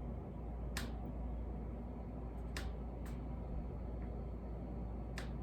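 Low steady hum with four faint, sharp clicks, like light taps of utensils on containers while soap batter is poured.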